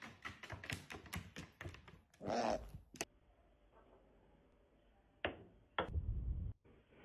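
An owl's talons clicking on a wooden floor as it runs, a quick string of light taps, about six a second. After a cut, two sharp knocks and a low thump come from a hand and a ping-pong ball on a wooden desk.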